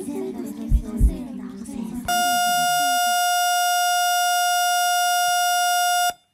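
Music with two deep thumps, then a loud, steady electronic beep tone with many overtones, like a buzzer, held about four seconds and cut off abruptly, played over a concert sound system as the show opens.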